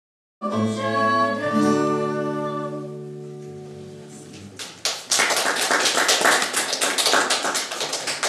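A song with singing and acoustic guitar ends on a held note and chord that slowly fade out. About four and a half seconds in, applause breaks out and continues.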